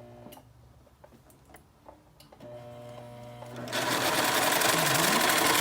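Serger (overlock sewing machine) starting up about two-thirds of the way in and running fast and steadily. It is being run to test its fresh threading and is forming a stitch. Before it starts there are a few light clicks.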